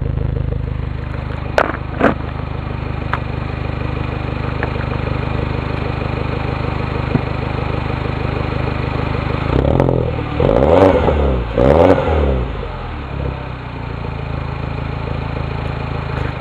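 Mini Cooper S's turbocharged 1.6-litre four-cylinder running at the exhaust with a rattly idle, then revved a few times in quick succession about ten seconds in, the pitch rising and falling with each blip before settling back to idle.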